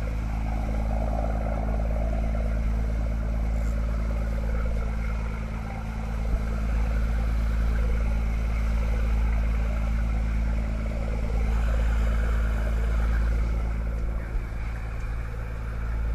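Fishing boat's engine running steadily underway, a constant low drone, with the rush of the churning wake.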